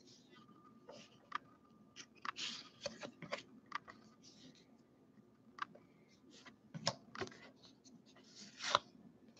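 Baseball trading cards being flipped through by hand: faint irregular slides and clicks of card against card, with a couple of sharper snaps near the end.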